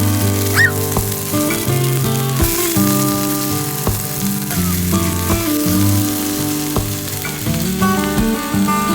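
Background music with sustained notes changing every second or so, over a steady hiss.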